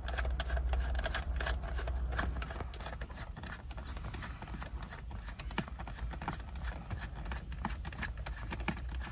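Phillips screwdriver backing screws out of the metal housing of a car radio head unit: irregular small clicks and scrapes of the bit turning and the loosened screws, over a low rumble.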